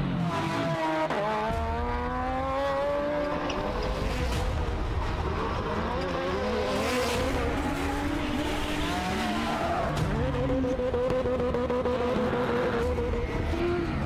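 Off-road race vehicle engines revving hard, with several rising and falling engine pitches cut one after another.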